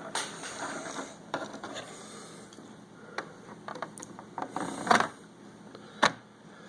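Plastic Lego bricks and built Lego sets being handled and shifted on a surface: light rubbing with scattered clicks and knocks, the loudest knock about five seconds in and another sharp one about a second later.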